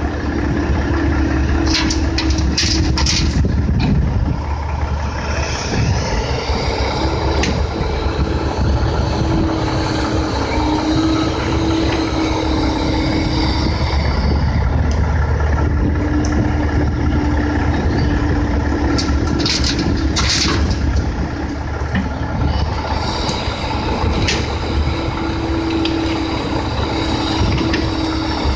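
Kobelco 135SR excavator's diesel engine running under hydraulic load, its tone wavering as the machine digs and swings. A clatter of dirt and stones drops into the steel dump-truck bed about two seconds in, and again about twenty seconds in.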